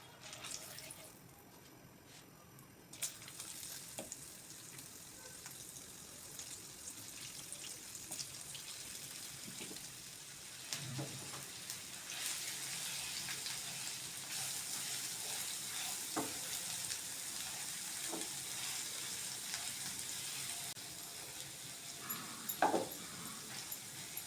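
Bread pakora sizzling as it deep-fries in hot oil, the sizzle starting about three seconds in and growing louder about halfway through. A few short knocks from a utensil come through it, the loudest near the end.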